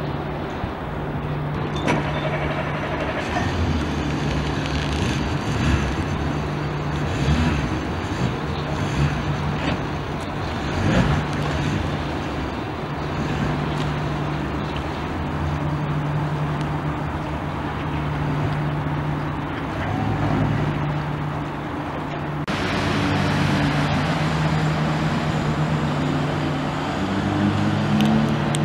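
Honda 50 hp four-stroke outboard motor running with a steady low hum at low revs. After a sudden change about three-quarters of the way in, its note rises as the engine speeds up.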